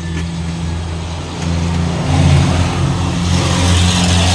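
An engine running, louder about a second and a half in, with a rushing hiss that swells toward the end.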